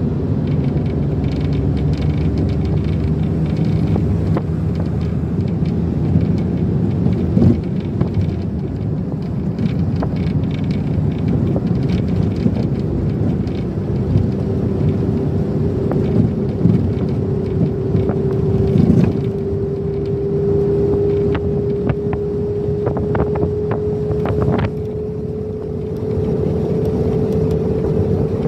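A moving vehicle heard from inside: a steady running rumble with a hum that slowly climbs in pitch over the second half as it gathers speed, and a few short knocks and rattles.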